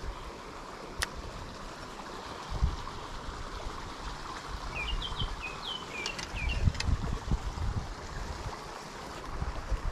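Water rushing over a small creek spillway, a steady hiss, with low bumps of wind on the microphone and a single sharp click about a second in. A bird chirps a quick run of short notes a little past the middle.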